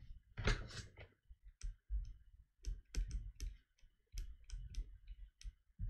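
Pen writing on paper: an irregular run of short scratches and taps as the words are written out stroke by stroke.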